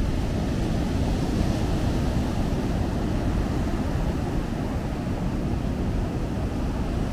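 Steady noise of ocean surf on the beach, with wind rumbling on the small camera's microphone.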